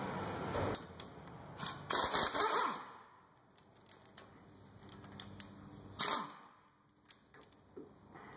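Pneumatic impact wrench hammering in two short bursts, a longer one about two seconds in and a brief one about six seconds in, breaking loose the brake caliper mounting bolts.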